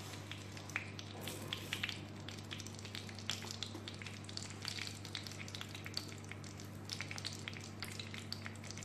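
Mustard seeds frying in hot coconut oil in a clay pot: a sizzle with many short, sharp crackles and pops as the seeds begin to burst, the sign the oil is hot enough for tempering. A steady low hum runs underneath.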